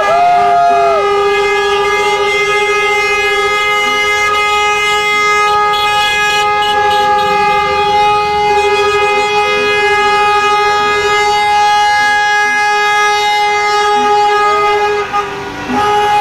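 Many car horns held down at once, a steady blaring chord of several tones that barely breaks, with a short rising-and-falling siren-like tone in the first second.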